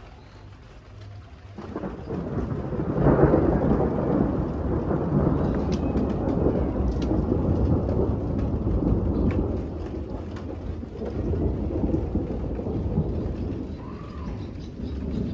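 A long roll of thunder: it breaks in about a second and a half in, is loudest a second or so later, and keeps rumbling in uneven swells, easing a little near the end.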